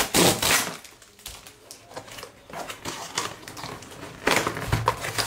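Product packaging being opened and handled by hand: rustling and crinkling with small clicks, loudest at the start and again about four seconds in.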